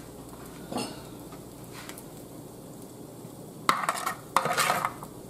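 Kitchen utensils scraping and clinking against a metal pan while scooping stuffed-pepper filling: a couple of light clinks early on, then two rough scrapes near the end.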